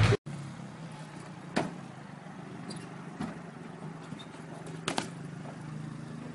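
Motor vehicle engine running steadily at idle, with three sharp knocks spread through it.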